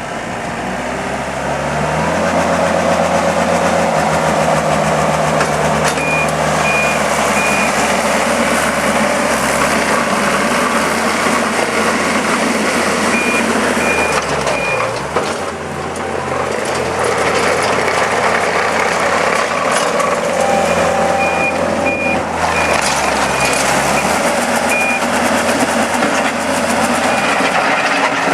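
Takeuchi TL130 tracked skid steer's diesel engine running and revving up and down as the machine is worked, with its backup alarm beeping in short runs of evenly spaced beeps several times.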